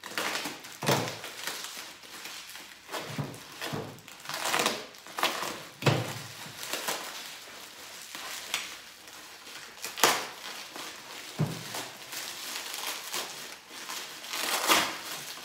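Plastic packaging crinkling and rustling as it is pulled open by hand to unwrap a new clutch slave cylinder, in irregular handling noises with a few louder crunches.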